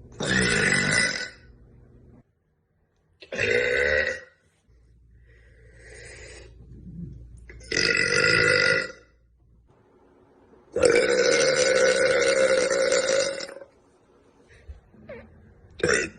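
A young woman burping loudly, four big burps in a row: three of about a second each, then a long one lasting nearly three seconds, with another starting right at the end.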